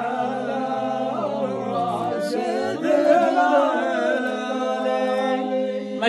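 A man's voice chanting Bedouin Nabati poetry unaccompanied, holding long, drawn-out sung notes, with a short break about two seconds in before the chant resumes.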